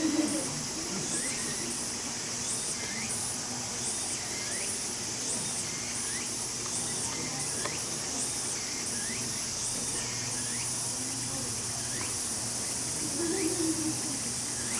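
A steady, high-pitched insect drone with a regular pulsing beat. Short rising chirps repeat about once a second over it.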